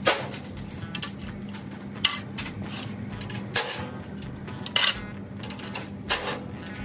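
Metal clanks and clinks from a steel motorcycle shipping crate being unbolted and taken apart: about six sharp knocks roughly a second apart, some ringing briefly, over a steady low hum.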